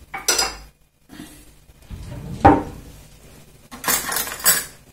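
Kitchen crockery and cutlery being handled: a clatter just after the start, a sharp knock with a short ring about halfway, and a longer rattle near the end.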